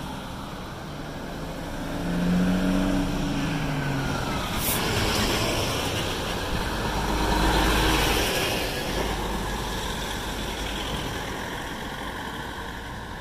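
A light van and then a line of Hino Profia dump trucks driving past close by, diesel engines and tyres swelling and fading, loudest about two and a half and seven and a half seconds in. A short hiss comes near the middle.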